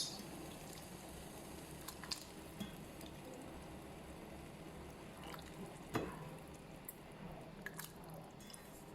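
Chicken pieces boiling in a pot of water, a faint steady bubbling, with a few light clicks, the clearest about six seconds in.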